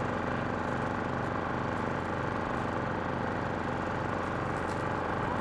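Motorboat engine running steadily: an even low hum with a regular pulse.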